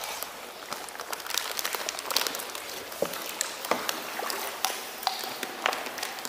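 Shallow muddy water splashing and sloshing as something is pushed and stirred through it by hand, with many small sharp splats and drips.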